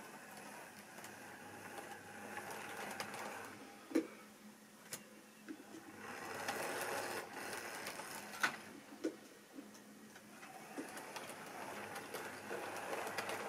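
Model railway diesel locomotive running on the track: its small electric motor whirring steadily, louder from about six seconds in, with a few sharp clicks as the wheels cross rail joints and points.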